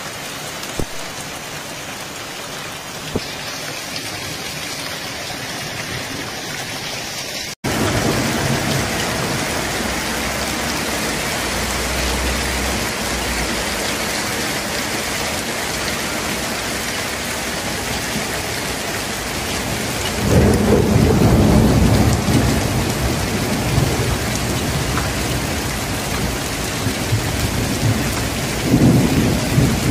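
Hail and rain pelting down on paving and ground, a dense steady hiss with a few sharp ticks of stones early on. After a cut about seven seconds in it is louder, with low rumbling surges about two-thirds of the way through and again near the end.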